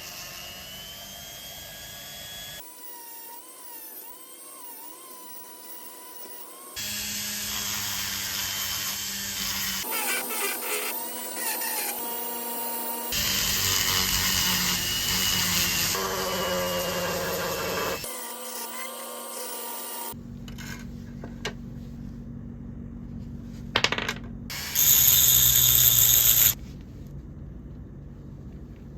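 Workshop power-tool work, such as drilling or grinding, heard as a series of short clips that change abruptly from one to the next. The loudest is a brief, high-pitched noisy stretch near the end.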